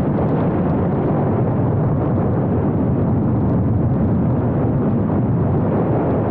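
Steady wind rush and buffeting on the microphone of a motorcycle riding at road speed, with the Triumph Scrambler 900's parallel-twin engine running underneath, evenly and without a change in pace.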